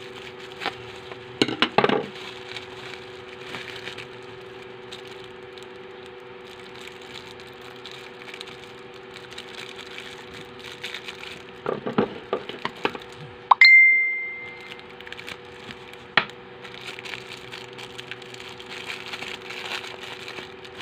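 Plastic packaging crinkling and rustling as a bubble-wrap mailer and a clear plastic bag are opened by hand, with sharp crackles near the start and a cluster around two-thirds through. Partway through comes one loud metallic clink that rings briefly. A steady low hum runs underneath.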